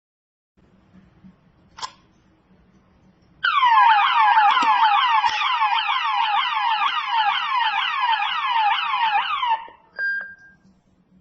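Electronic alarm-style tone from a wireless video doorbell system's speaker: a loud, fast run of falling-pitch chirps lasting about six seconds that cuts off suddenly. A click comes before it and a short beep follows it.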